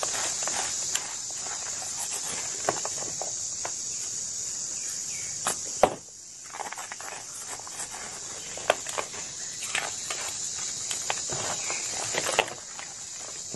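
Hands crushing and crumbling blocks of white gym chalk in loose chalk powder: a run of soft crunches and crackles over a steady high hiss. The hiss drops out about six seconds in and returns near the end.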